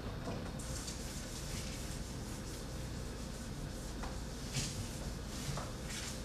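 A lump of soft coal scraped and rubbed against a wall in short scratchy strokes, over a steady faint hum of room noise.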